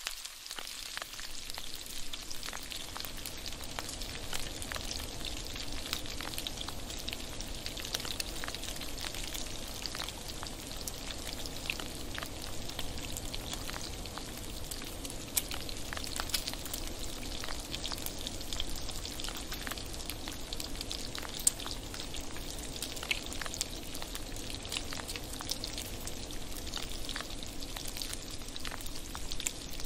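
Bacon sizzling in a steel frying pan: a steady hiss of hot fat with frequent sharp pops and crackles throughout.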